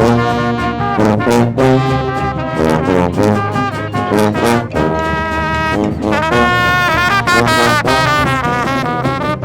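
Music with brass horns playing a melody of held notes that change pitch every half second or so, over a steady bass.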